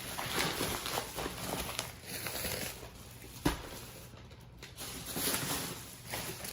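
Grocery packages being handled: irregular rustling and light clicks, with one short knock about three and a half seconds in.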